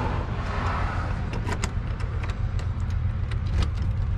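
Keys jangling and a series of sharp metallic clicks as a key is worked in a door's deadbolt and knob lock, starting about a second in, over a steady low rumble.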